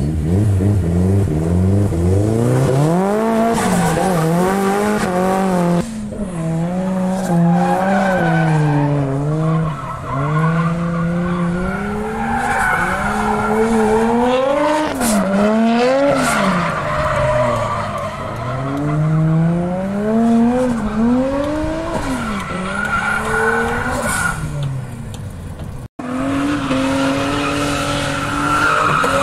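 Drift car sliding with its engine revving hard, the pitch climbing and dropping again and again through the slides, over the screech of spinning tyres. The sound cuts out for an instant near the end, and then another car is heard revving and sliding.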